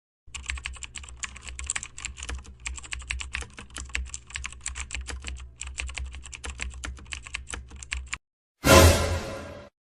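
Rapid computer-keyboard typing, a dense run of key clicks lasting about eight seconds, with two short pauses. It stops, and near the end one loud sudden hit rings out and fades over about a second.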